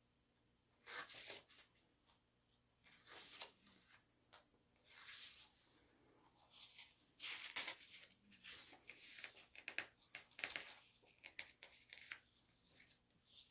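Glossy pages of a photo book being turned and handled: repeated short rustles and flaps of stiff paper, the busiest stretch past the middle.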